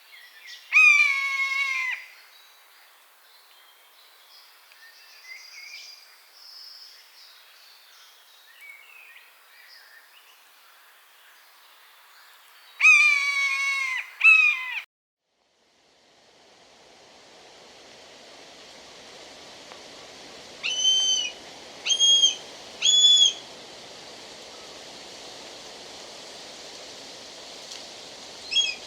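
Common buzzard calling. First come long, drawn-out mewing calls that fall in pitch, one about a second in and two close together around halfway. After a break, a series of shorter, higher calls follows over a steady background hiss.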